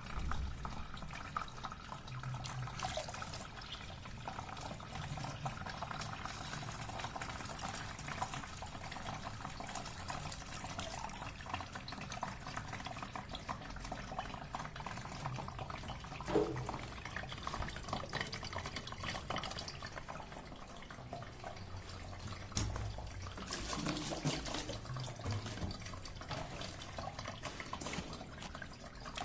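Aqua regia solution being poured slowly into a cement-bag paper filter and trickling through, a steady liquid pouring and trickling, with a brief knock about halfway through.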